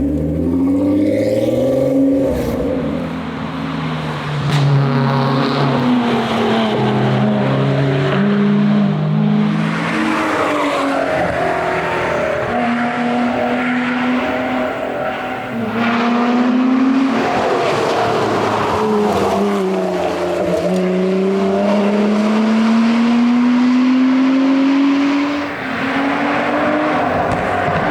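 Lotus Exige engine run hard at rally pace. Its pitch climbs and then drops back at each gear change, with one long climb to high revs near the end before a shift.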